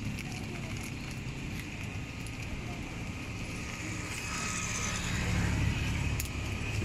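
Open-air street-stall ambience: a steady low hum, with a low rumble that swells about four to six seconds in, like a vehicle passing.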